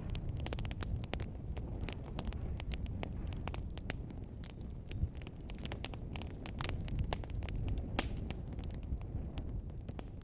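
Fireplace fire crackling: frequent irregular pops and snaps over a low, steady rumble of flames.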